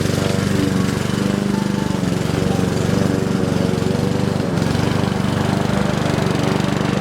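Small petrol engine of a grass cutter running steadily under load while cutting tall grass.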